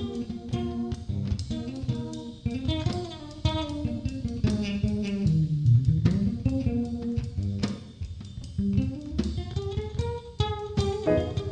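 Background music: a jazzy piece led by plucked guitar over bass and drums.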